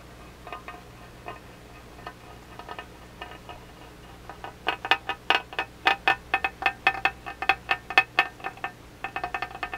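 A round-bottomed rocking glass tipping back and forth on a glass surface, clinking with a short ringing note at each tip. Light ticks at first, then from about halfway a rapid run of louder clinks, several a second.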